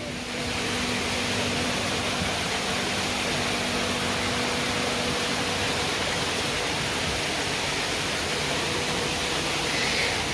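Steady rush of water from a small stream flowing over rocks.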